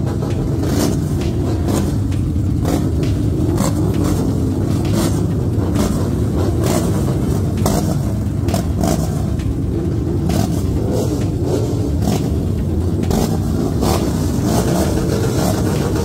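Many motorcycle engines running together in a deep, steady rumble, crossed by short sharp cracks about once a second.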